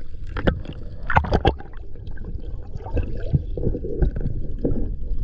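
Muffled underwater water noise with gurgling bubbles and scattered sharp clicks, the strongest cluster of clicks about a second in, heard with the microphone submerged.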